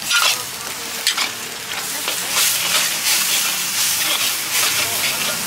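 Noodles sizzling in a hot wok as a metal spatula stirs and tosses them, scraping against the wok with repeated sharp strokes over a steady frying hiss.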